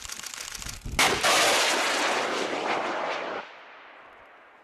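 A Type 01 light anti-tank missile being fired: a sharp bang about a second in, then a loud rushing noise for a little over two seconds that cuts off suddenly and trails away in a fading echo.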